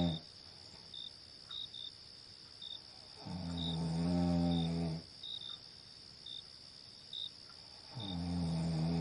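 A person snoring in slow, regular snores, one about every four and a half seconds, over short cricket chirps and a steady high insect hum.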